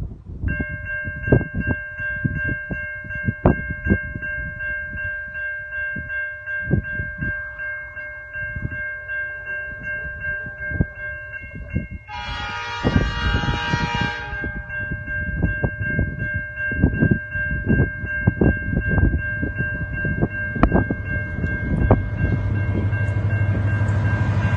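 A freight train approaching behind a steady high-pitched ringing tone and wind buffeting the microphone. About twelve seconds in, the leading SSR diesel locomotive sounds its horn for about two seconds. Near the end the locomotives' engine drone and wheel noise grow quickly louder as they close in.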